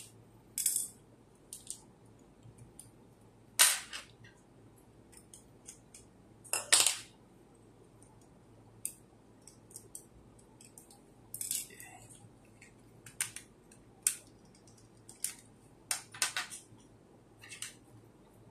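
Irregular sharp clicks and light taps of metal tweezers and tiny screws against a dashcam's hard plastic housing. Two louder clacks come about three and a half and seven seconds in.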